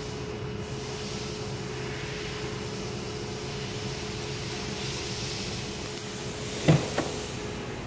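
Steady machine hum with a constant tone, broken near the end by two quick knocks about a third of a second apart, the first the louder.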